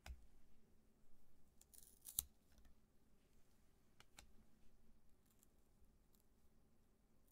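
Trading cards being handled in near silence: a short sliding rustle ending in a sharp click about two seconds in, and a few light clicks and taps.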